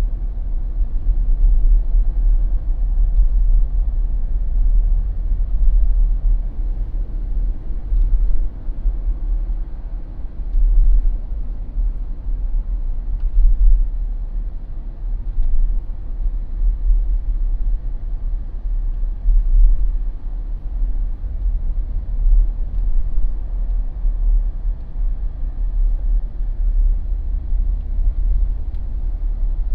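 Jeep driving along a paved street: a steady low rumble of engine and tyre noise that swells and eases slightly.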